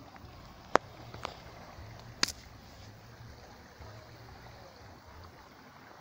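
Small waves lapping and washing against shoreline rocks as a steady, low wash. Three sharp clicks cut through it in the first half, the first the loudest.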